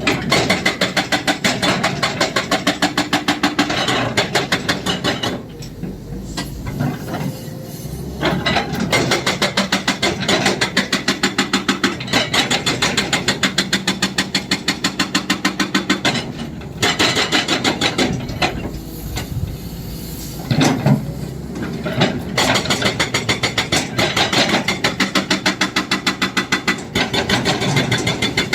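Excavator-mounted hydraulic breaker hammering, with rapid, even blows many times a second. It stops briefly a few times, for about three seconds a little after five seconds in.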